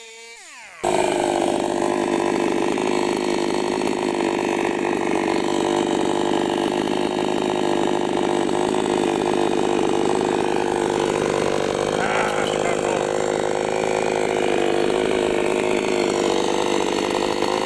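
Two-stroke petrol chainsaw running steadily while cutting banyan roots. It comes in abruptly about a second in, replacing a moment of music.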